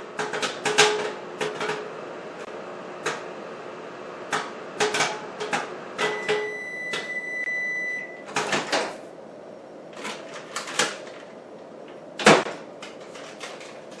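Popcorn kernels popping in a paper bag inside a running Sharp Carousel microwave oven: scattered sharp pops over the oven's steady hum, the popping slowing as the batch finishes. About six seconds in, the microwave's end-of-cycle beep sounds for about two seconds and the hum stops; a few more pops follow, then one louder knock near the end.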